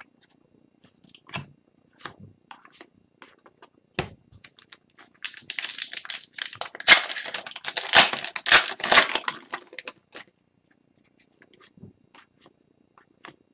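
Foil wrapper of an Upper Deck Series 2 hockey card pack being torn open and crinkled, a dense tearing stretch in the middle, with scattered light clicks and taps of handling cards and packaging before and after.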